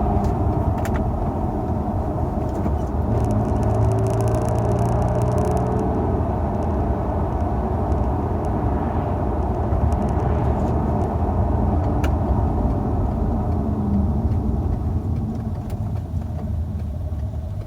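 Peugeot 406 Coupé's V6 engine running with a steady low noise that eases off slightly near the end, with a couple of sharp clicks from the microphone.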